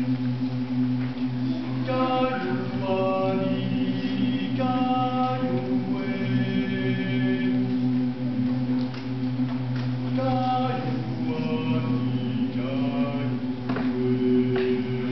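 Mixed choir singing: a low, steady held drone runs throughout, and phrases of melody rise and fall above it, starting about two seconds in and again about ten seconds in.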